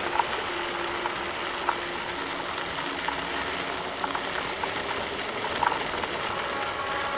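Steady rushing hiss of wind and road noise while riding a Nanrobot LS7+ electric scooter, with a faint hum that comes and goes and a few light clicks.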